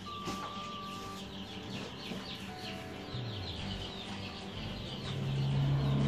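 A brooder of baby chicks peeping continuously, many short high peeps overlapping. A low hum comes in about three seconds in and grows louder near the end.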